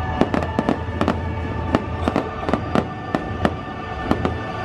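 Aerial fireworks bursting in quick succession, with sharp cracks and pops about three times a second, over music.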